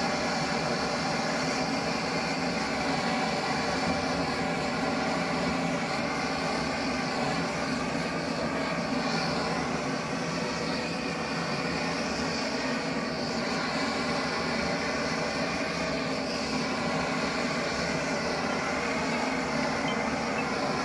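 Gas heating torch flame burning with a steady, even noise and faint steady tones as it preheats the H11 tool-steel ram to 150–200 °C before welding.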